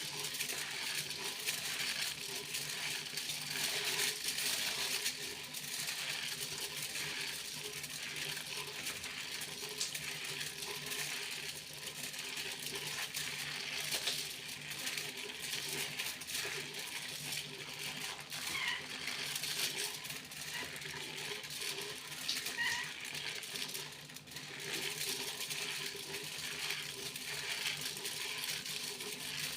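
Aluminium foil being crinkled and jingled by hand: a continuous dense crackle of fine clicks and rustles that swells and eases slightly, over a faint steady low hum.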